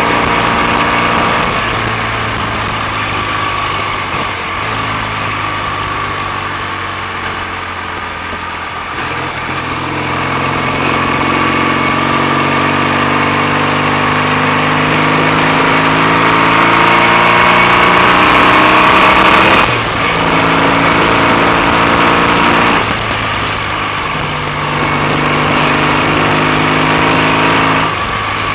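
BSA A65 650 cc parallel-twin engine on the road, pulling through the gears: its note climbs under acceleration, then drops at each gear change, with several changes through the stretch.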